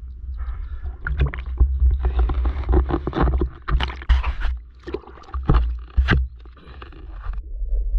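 Water splashing and sloshing at the surface close to the microphone, with an irregular run of knocks and scrapes as a speared Nile tilapia is handled on the spear. It dies down near the end.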